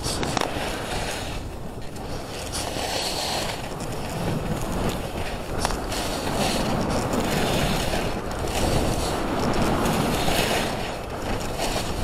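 Skis sliding over snow on a downhill run, with wind rushing across the camera's microphone: a steady rough rush that grows louder from about four seconds in and eases briefly near the end.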